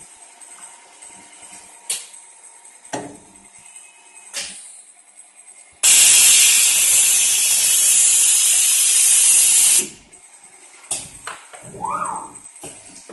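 Pulse-heat TAB bonding machine cycling. A few sharp mechanical clicks come first. Then a loud, steady hiss of compressed air runs for about four seconds while the bonding head presses down, starting and cutting off suddenly. Near the end there are more clicks and a short rising motor whine.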